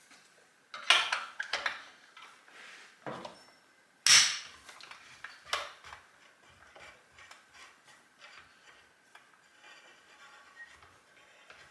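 Metal tools and chainsaw parts clinking and clattering while the handle is taken off the saw: several sharp clanks in the first six seconds, the loudest about four seconds in, then lighter ticks and rattles.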